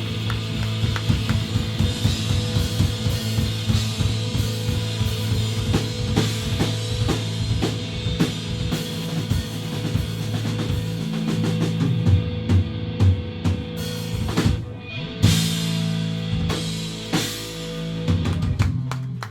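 Three-piece rock band playing live: drum kit pounding with bass drum, snare and cymbal hits over held bass and guitar notes. After about twelve seconds the drumming breaks into separate heavy hits, typical of a song's closing flourish.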